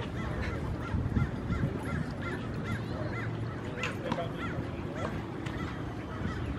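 Dogs yipping while they play-wrestle, with a quick run of short high yips in the middle, over a steady low background hum.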